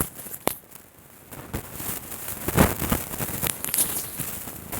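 Domestic cat purring close up: a low, irregular rumbling with crackling.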